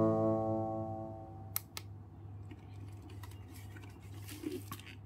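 Guitar background music fading out, then a few faint sharp clicks and handling knocks from a plastic LED flood light being turned over in the hands, two of them close together, over a low steady hum.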